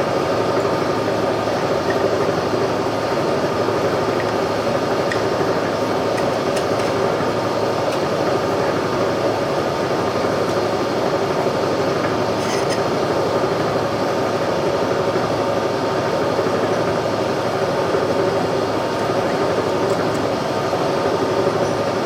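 Boring machine running steadily, its boring bar cutting out a worn, egg-shaped hole in a steel trailer suspension frame, with a constant hum and a few faint ticks partway through.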